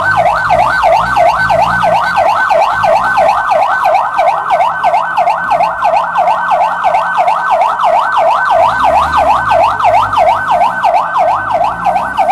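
Ambulance siren on a fast electronic yelp, its pitch sweeping rapidly up and down over and over.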